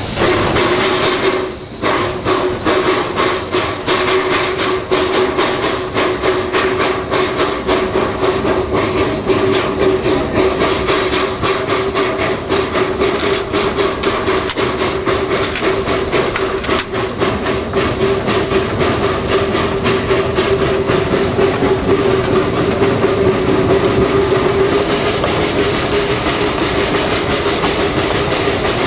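Narrow-gauge steam locomotive working along the track: its exhaust chuffs in a steady rhythm over a continuous drone, with wheels clattering on the rails. Near the end the sound turns brighter and hissier.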